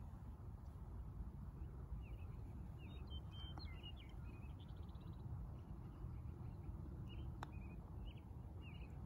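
Small birds chirping in short, scattered calls over a low steady rumble. About seven seconds in there is one sharp click: a putter striking a golf ball.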